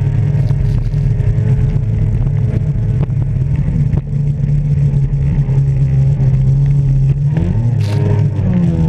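Jet ski engine running at a steady high speed while the craft skims the water. About seven and a half seconds in the engine note dips and climbs back up as the jet ski banks through a turn, with one short burst of noise.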